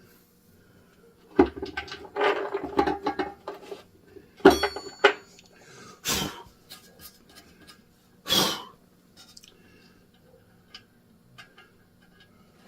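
Metal tools and parts clattering and clinking while being handled on a workbench, with a brief metallic ring. Two short hissing bursts follow, over a faint steady hum.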